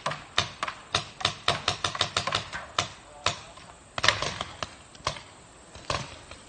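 Paintball markers firing: sharp pops in irregular runs, up to several a second, densest about two seconds in and again around four seconds in, from more than one marker.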